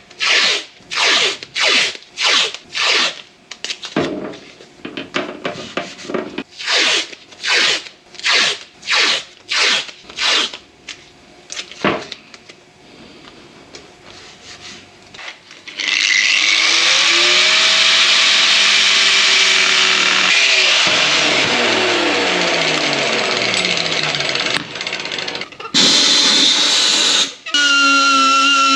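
Metalwork on a small radiator: a hand tool scraping or cutting in quick, regular strokes, about two a second, which stop about twelve seconds in. After a short lull a power tool runs steadily and loud for several seconds, its whine falling in pitch as it slows. Near the end comes a steady high, whistle-like tone.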